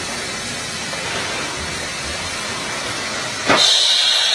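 Small electric-motor portable drill rig running, its drill rod boring horizontally into rock with a steady, noisy machine sound. About three and a half seconds in, the sound jumps abruptly to a louder hiss.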